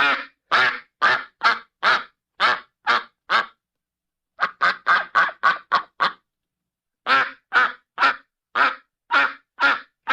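Duck quacking in three runs of loud, clipped quacks separated by short gaps of dead silence. The first and last runs go at about two quacks a second, and the middle run is quicker, at about four a second.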